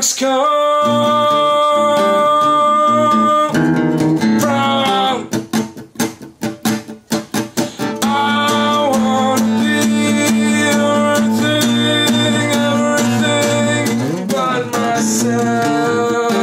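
A song with a strummed acoustic guitar and a singing voice. From about five to eight seconds in, the guitar plays short, choppy strums with gaps between them, then the full strumming and voice return.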